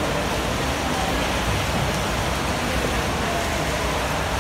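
Steady rushing wash of splashing water from swimmers doing lengths in an indoor pool.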